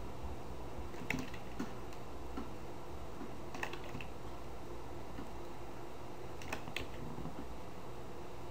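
A few scattered clicks of a computer keyboard and mouse, in small clusters about a second in, around three and a half to four seconds, and around six and a half seconds, over a steady low hum.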